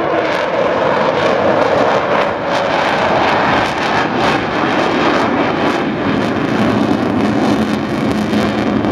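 Avro Vulcan XH558 jet bomber flying low overhead, its four Rolls-Royce Olympus turbojets making loud, steady jet noise. A low steady tone joins in near the end.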